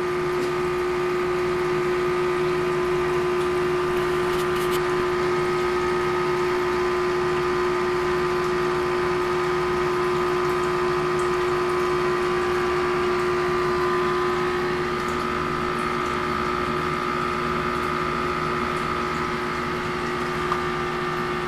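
Steady hum of an aquarium pump with water running and bubbling, holding one constant tone throughout.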